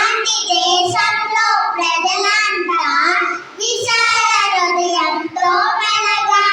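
Children singing a song in sustained notes, with a short break for breath about three and a half seconds in.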